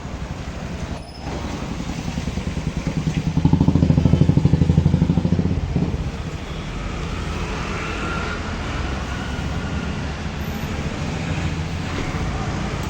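A vehicle engine running with a rapid, even firing pulse, louder for about two seconds near the middle before settling back.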